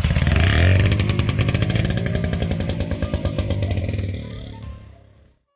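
Vintage lightweight motorcycle's small single-cylinder engine running with a rapid buzz as the bike pulls away, fading as it rides off.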